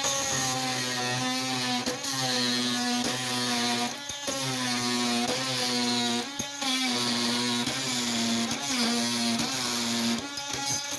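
Oscillating multi-tool running with a Diablo carbide blade, cutting through wood with nails in it: a steady buzz whose pitch sags briefly about once a second as the blade is pushed into the cut and loaded.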